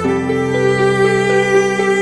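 Instrumental background music with long held notes and a slow melody, and no firework bangs.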